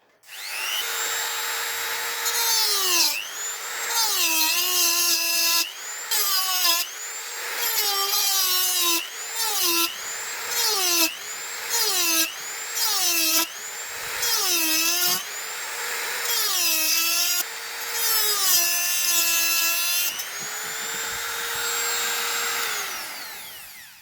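Small handheld electric power tool running at high speed. Its whine sags in pitch over and over as it bites into the work under load and climbs back as it frees, then winds down near the end.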